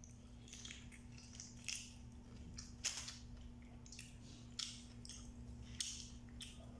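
Shells of cooked blue swimming crabs being cracked and picked apart by hand, with chewing and sucking of crab meat: a string of short crackly snaps, the sharpest about three seconds in. A steady low hum runs underneath.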